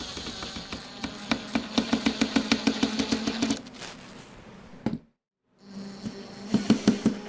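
Makita cordless impact driver running screws into a wooden board, its impact mechanism rattling in fast bursts. A short silent break comes about five seconds in, then the driver rattles again near the end.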